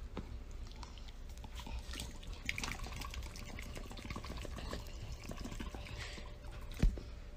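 Faint scattered small clicks and rustling as a hand pets and pats a black puppy on a bed, with a soft thump near the end.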